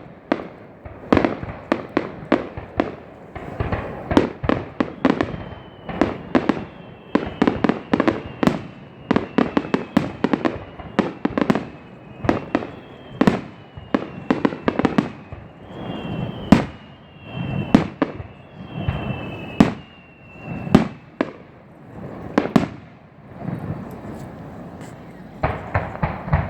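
Fireworks display: a rapid, irregular series of shell bursts, sharp bangs each followed by an echoing rumble. Thin whistles glide slightly downward between the bangs through the middle stretch.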